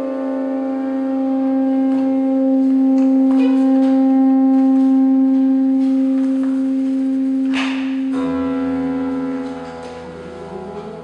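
Tenor saxophone holding one long, steady note over sparse grand-piano sounds in a free, aleatoric contemporary piece. About seven and a half seconds in there is a sharp struck sound, then low piano tones ring as the saxophone note fades near the end.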